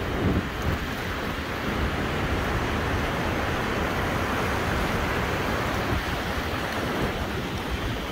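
Steady rush of surf with wind buffeting the microphone.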